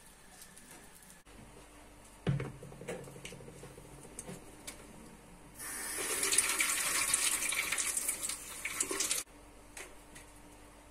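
Water running from a kitchen tap for about three and a half seconds, switched on and off abruptly. A single knock of something set down comes about two seconds in.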